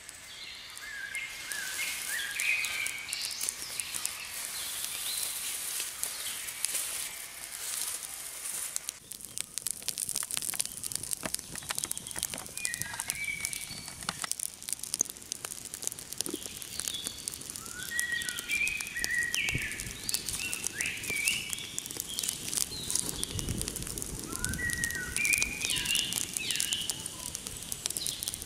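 Small fire of dry twigs and sticks crackling and popping as it burns, with birds chirping in short bursts several times.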